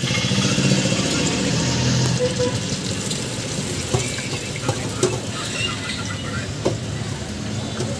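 Food deep-frying in hot oil in a wire-basket fryer: a steady sizzle and bubbling. A few short metal clicks of the basket come as the food is lifted and handled.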